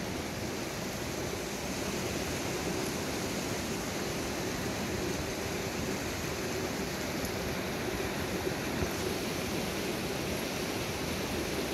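Steady rushing of a small mountain river flowing over rocks.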